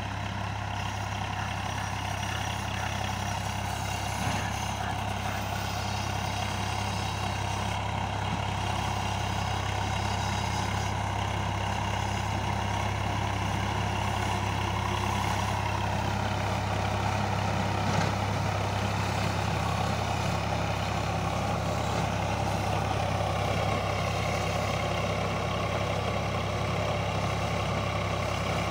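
Swaraj 855 tractor's three-cylinder diesel engine running steadily under load, driving a rotavator through paddy stubble; it grows a little louder as the tractor comes closer.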